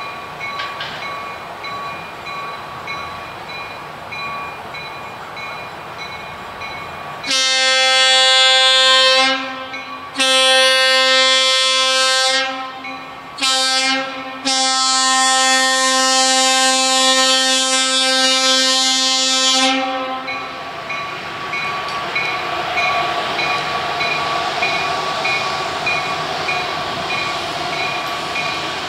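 Train horn blowing the grade-crossing signal: two long blasts, a short one, then a long one, with the train rolling slowly on the rails before and after.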